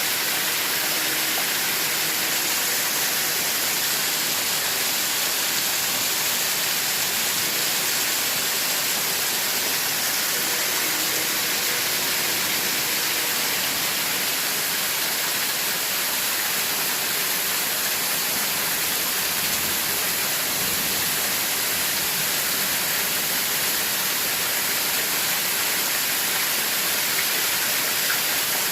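Steady hiss like static or white noise, even and unchanging throughout, strongest in the high end.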